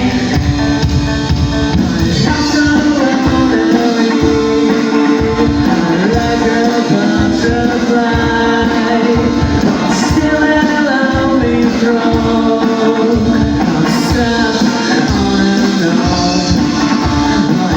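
Live rock band playing a song, with a singer over the band.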